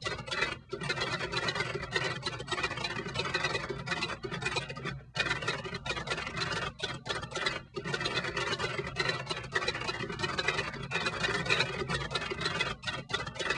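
Music with a dense, scratchy noise texture over a steady low hum, cutting out briefly several times.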